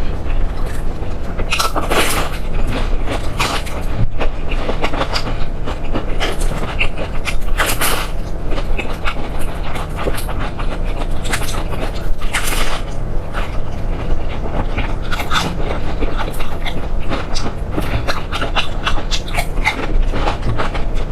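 Close-miked eating sounds: a person chewing food with her mouth, irregular wet, sharp smacks and crunches coming one after another, over a steady low hum.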